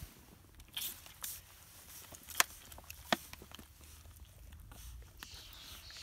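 An otter cub suckling and chewing at a milk bottle's teat while held in gloved hands: scattered small wet clicks and squelches with handling rustle, and two sharp clicks a little under a second apart about halfway through.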